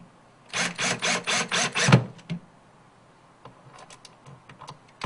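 Cordless drill driving a screw down through a drawer-slide mounting into the cabinet bottom. It runs in a fast pulsing, about five pulses a second, for about a second and a half, then stops with a knock as the screw seats. A few light clicks follow.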